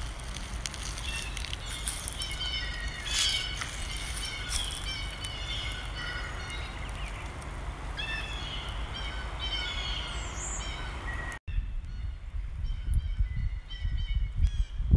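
Several small songbirds chirping and calling in quick short notes over a low steady rumble. The birdsong cuts off abruptly about two-thirds of the way through, leaving only the low rumble, which grows toward the end.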